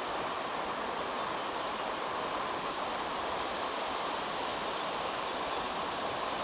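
Steady rushing of an Alpine mountain stream, an even, unbroken water noise.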